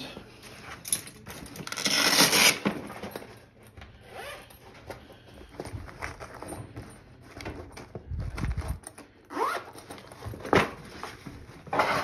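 Zipper of a soft-sided tool bag being pulled, with a long rasp about two seconds in and short quick zips near the end. Tools and the bag's contents rustle in between, with a dull bump about two-thirds of the way through.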